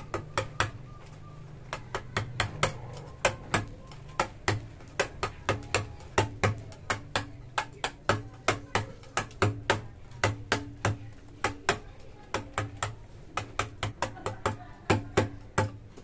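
Steel chisel tapped with a hand hammer into a natural-stone relief panel: a quick, irregular run of sharp taps, about three a second, with a few short pauses.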